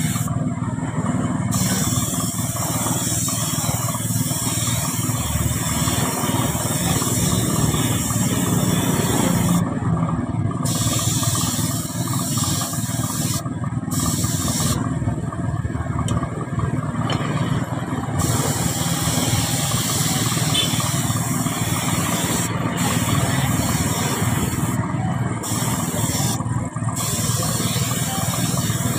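Gravity-feed spray gun hissing as it sprays clear coat onto a car bumper. The hiss stops and restarts several times as the trigger is let off and pulled again, over a steady low rumble.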